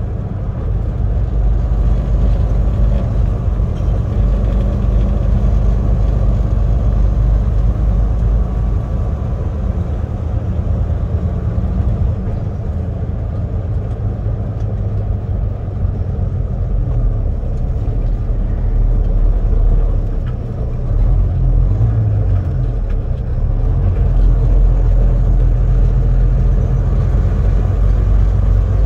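Semi truck's diesel engine running steadily under way, heard from inside the cab as a low drone, with a brief dip about two-thirds of the way through.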